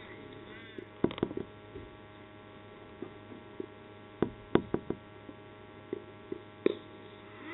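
Outdoor ambience over a steady low hum, broken by scattered sharp knocks, loudest about halfway through. A single sharp crack near the end, as the ball reaches the batter, is a cricket bat striking the ball.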